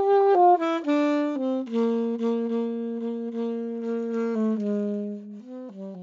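Saxophone playing a slow melody on its own: a few short notes, then one long held note, then stepping down to a low final note that fades out near the end.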